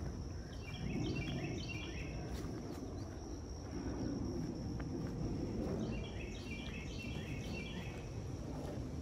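A songbird sings twice, each song a quick run of repeated short phrases that step down in pitch, over a steady high insect drone. There is low rustling and footfall noise from walking on the trail.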